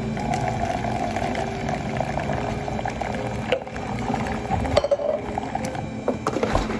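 A bubbling liquid sound, with a few sharp knocks and clinks in the second half.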